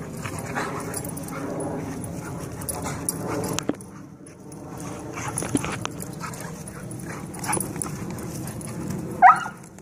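Two dogs play-fighting, with dog vocal noises through the tussle and a short high yip about nine seconds in, the loudest sound.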